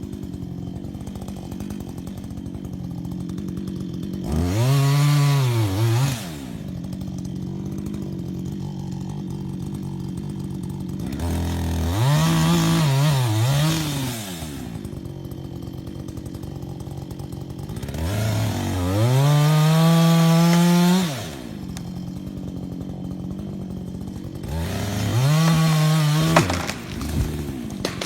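Two-stroke chainsaw idling between four bursts of full throttle. Each burst is a rising whine that holds for two to three seconds and then falls back to idle.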